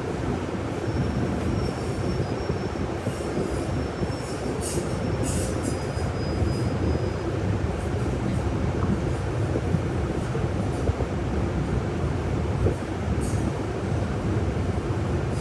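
Steady low engine and road rumble inside a city bus's cabin, with a faint thin high squeal through the first half and a few light clicks.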